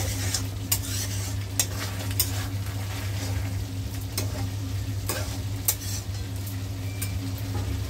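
Chicken pieces sizzling in hot oil in a kadhai while a spatula stirs them, clinking and scraping against the pan about five times. A steady low hum runs underneath.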